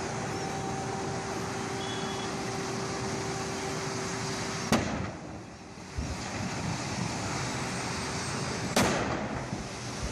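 Two sharp explosions from gas tanks bursting in a vehicle fire, about four seconds apart, over a steady background rumble.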